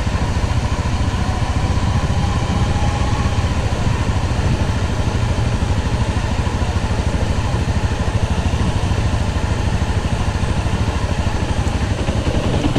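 Off-road motorbike engine running steadily as the bike is ridden across grass, with a fast, even beat of firing strokes.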